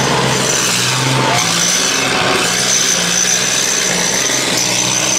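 Tracked armoured vehicles driving past at close range. Their engines run with a steady low drone under a thin, high whine that comes and goes.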